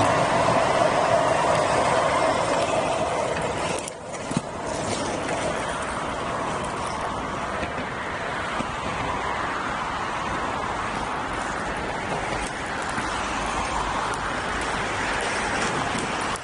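Steady urban traffic noise mixed with inline skate wheels rolling on rough asphalt. It is louder for the first few seconds while the skater passes close by, then dips briefly about four seconds in and carries on more evenly.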